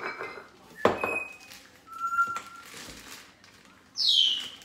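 A bag of confectioners' sugar being handled and opened, with a sharp knock about a second in and a rustle in the middle. Several short high-pitched squeaks sound over it, the loudest a falling squeak near the end.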